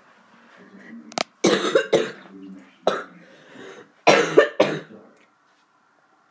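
A girl coughing in three loud bouts, with a sharp click just before the first.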